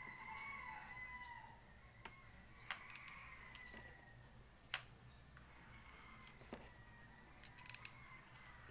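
Near silence broken by a few faint, sharp clicks of a hair flat iron being handled and clamped on a strand. A faint wavering high tone comes and goes in the background.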